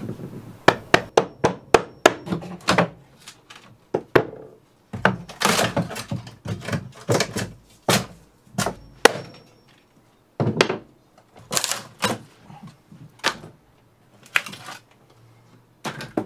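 A built-in wooden shelf being knocked apart: a quick run of sharp hammer blows in the first few seconds, then longer stretches of wood cracking and breaking away, with further knocks.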